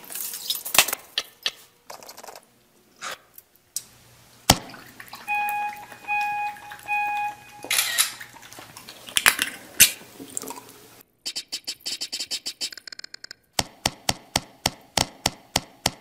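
Apple Photo Booth countdown heard from a video played over loudspeakers: three short, identical beeps about two thirds of a second apart, then a camera-shutter click as the photo is taken. Later comes a run of quick clicks and taps, several a second.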